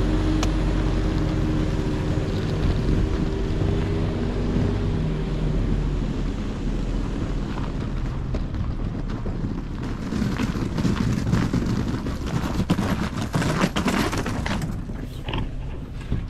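A vehicle engine idling steadily, fading away over the first five seconds or so, followed by irregular knocking and rustling noises in the second half.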